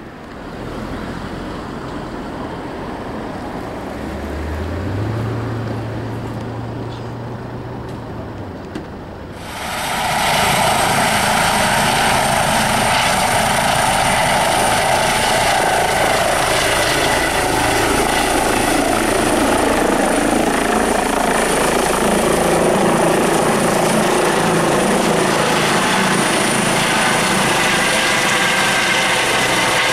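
Eurocopter EC135 air-ambulance helicopter running up and lifting off. A low hum rises in pitch in the first few seconds; from about ten seconds in comes loud, steady rotor and turbine noise with a high whine.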